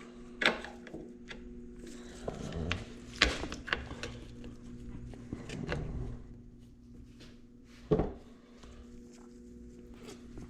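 Metal engine parts of a Honda CR85 clicking and clunking now and then as the shift selector and nearby pieces are handled and fitted into the clutch-side case, with one louder knock near the end, over a steady low hum.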